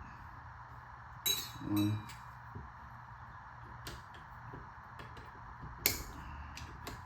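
Light metallic clinks and clicks of small brake caliper parts being worked loose and handled as the caliper is taken apart: a few sharp ones about a second in, near four seconds and near six seconds, over a steady faint hum.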